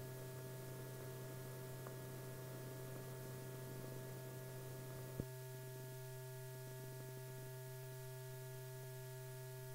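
Faint, steady electrical hum from the film's soundtrack, with a single short click about five seconds in.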